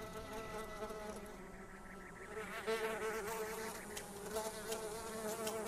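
Parasitic fly hovering close by, its wings giving a steady buzz that wavers slightly in pitch. A few faint ticks come in the second half.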